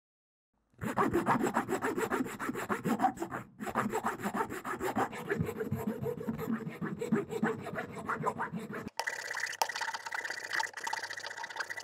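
A flat metal hand tool scraping the rough crust off a raw amber nodule in quick, repeated strokes after nearly a second of silence. About nine seconds in, the scraping turns steadier, with a faint ringing tone through it.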